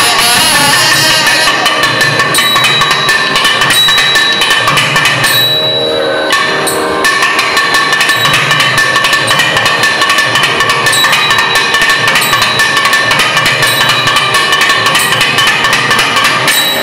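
Two nadaswarams (South Indian double-reed wind instruments) playing a held, ornamented melody over fast thavil drumming. The drum strokes stop briefly about five seconds in and pick up again about two seconds later.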